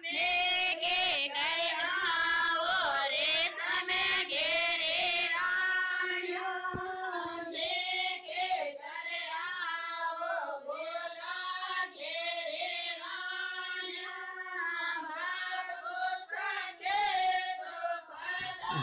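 Women's voices singing a song without instruments, in long drawn-out notes that bend and turn.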